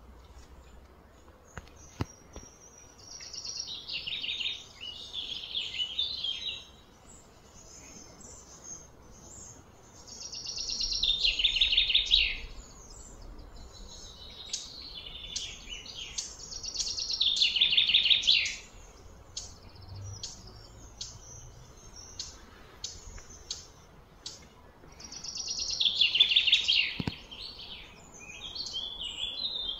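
High-pitched animal calls in four swelling phrases of two to four seconds each, each building up and then stopping abruptly, with quieter scattered calls in between.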